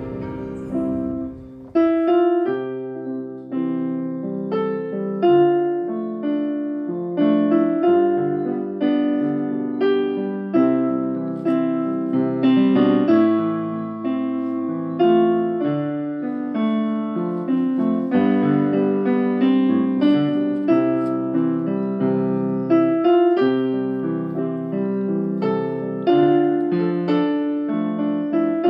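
Solo piano music, notes struck and left to ring, beginning about two seconds in after a brief low rumble.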